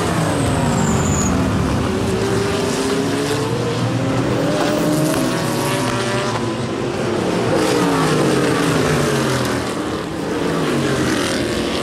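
Race cars at speed on a road circuit, several engines overlapping, their pitch rising and then falling again as the cars go by.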